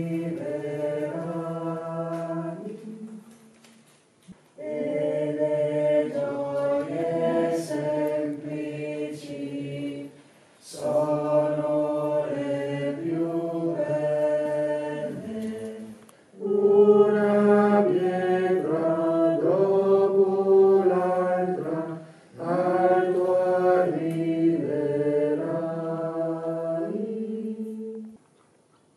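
A small group of voices singing a hymn together, unaccompanied, in five phrases of a few seconds each with short pauses for breath between them.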